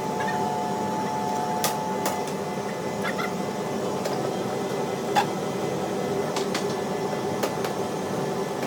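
Large Carrier air handling unit blower running with a steady whir and several steady tones, with a few sharp clicks scattered through it: a noisy blower that is out of balance.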